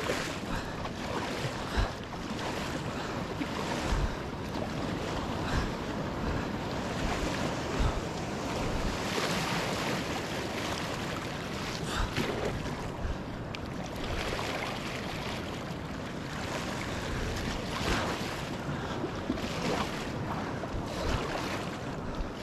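Breaking surf and wind on the microphone, with a kayak paddle splashing into the water on each stroke, roughly every couple of seconds.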